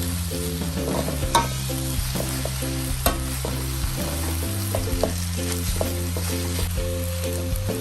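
Food sizzling as it fries in a pan while being stirred, with a few sharp clicks, the loudest about a second and a half in and again about three seconds in.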